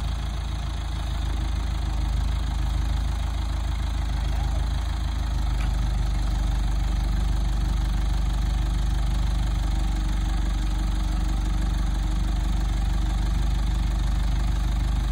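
Engine of a rough-terrain telescopic forklift idling steadily.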